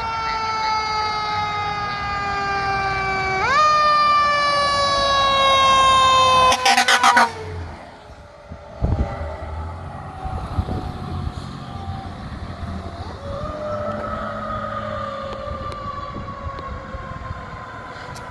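Ferrara aerial fire truck's mechanical Q siren in a long, slowly falling wail, spun back up about three and a half seconds in and falling off again. A few short air horn blasts come about seven seconds in. Later the siren wails again more faintly, rising once more about thirteen seconds in and then sinking.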